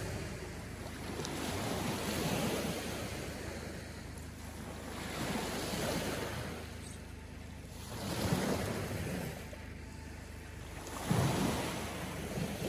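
Small lake waves breaking and washing onto the shore. The wash swells and fades about every three seconds, with a sharper break near the end.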